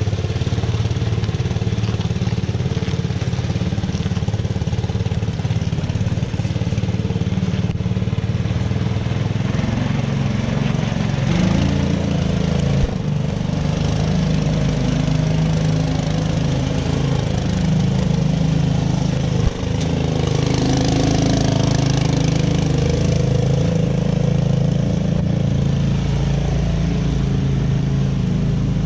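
The COOT's small engine running steadily with its freshly rebuilt carburetor, its note shifting about nine seconds in as it takes on load while being driven. There is a single brief knock about two-thirds of the way through.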